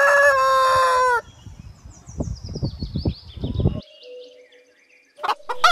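Chickens calling: a long, drawn-out call for about the first second, then softer clucking and clicking with short high chirps. After a brief lull, loud calling starts again near the end.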